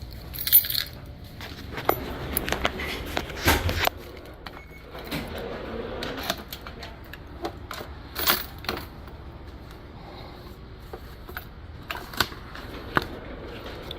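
Irregular clicks, light knocks and metallic jingles from keys and a post office box being handled while mail is taken out and sorted. The loudest knocks come about half a second, three and a half, and eight seconds in.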